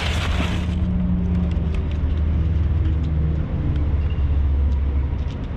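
Low, steady rumble of a vehicle engine running close by, with a few faint clicks on top.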